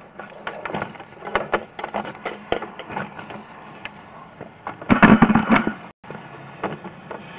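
Irregular knocks, clicks and scrapes from a sewer inspection camera and its push cable being pulled back out of the drain pipe, with a louder clatter about five seconds in. The sound cuts out for an instant just after.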